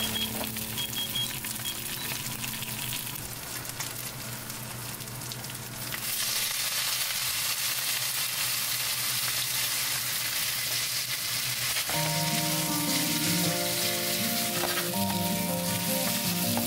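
Mackerel pieces sizzling in oil in a frying pan. About six seconds in the sizzling grows louder as boiled spaghetti goes into the pan and is tossed with tongs. Background music comes in partway through.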